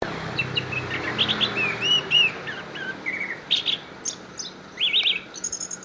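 Orange-headed thrush singing a varied song of short whistled phrases, slurred notes and quick chirps and trills, busiest in the first half and sparser toward the end.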